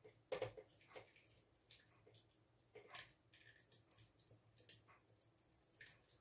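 Cooked elderberries and their juice pouring from a saucepan into a cheesecloth-lined sieve: faint, scattered drips and soft wet splats, the loudest just after the start.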